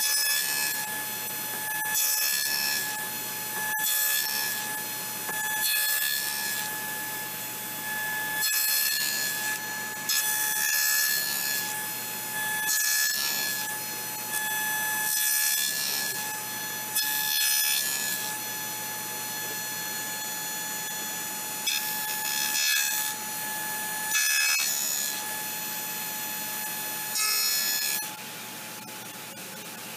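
Table saw running with a steady whine while a board is passed over the blade again and again to cut a row of narrow notches in its edge: a burst of cutting noise about every two seconds, with the bare whine between passes.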